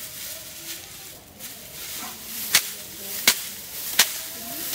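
A bundle of dry paddy straw is beaten down by hand to thresh it, making four sharp slaps in the second half, about one every three quarters of a second. Dry straw rustles before them.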